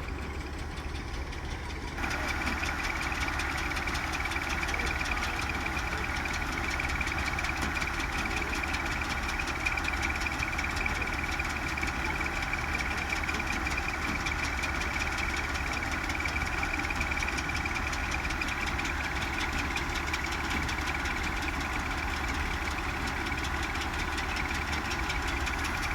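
Harvesting machine's engine running steadily, with a steady whine over the engine noise; it grows louder about two seconds in.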